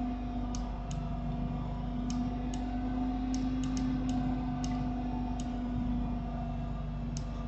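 Scattered sharp clicks of a computer mouse and keyboard in use, about a dozen at uneven intervals, over a steady low hum.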